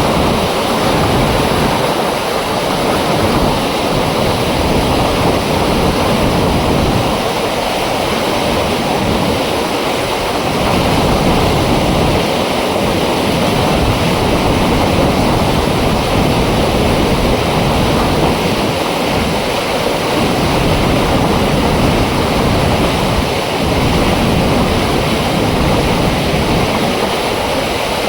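Water pouring through an open dam flap gate, a loud, steady rush of falling water.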